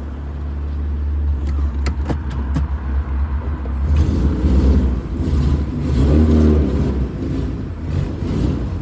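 1992 VW Voyage's 1.8-litre four-cylinder engine running, getting louder as it is revved, with a few sharp clicks about two seconds in.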